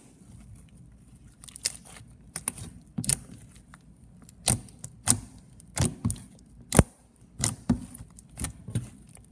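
Fluffy slime with foam beads being squished and poked in the hands, making a run of sharp pops and clicks. They are sparse at first, then come about every half second from about halfway in.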